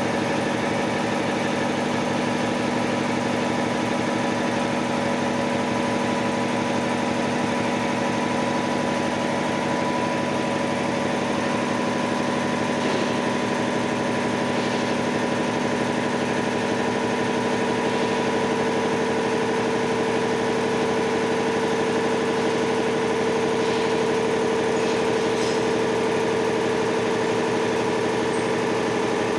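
Maruti 7.5 HP belt-driven piston air compressor on a 500-litre tank running steadily, its electric motor driving the pump with an even mechanical hum. One of its tones grows stronger a little past halfway.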